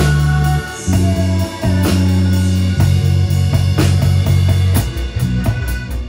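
Live synth-pop band playing an instrumental passage: bass guitar holding long low notes under synth and drum kit, with the drum hits coming faster near the end.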